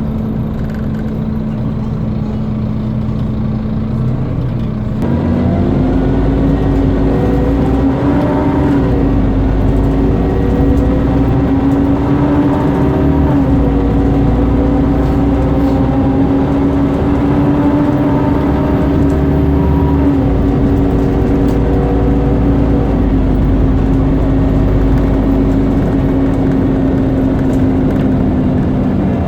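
Scania CN230UB Omnicity bus running with a loud, steady vacuum-cleaner-like whine, the 'hoover' noise. The whine steps up in pitch about five seconds in, with a deeper rumble joining, and then holds steady.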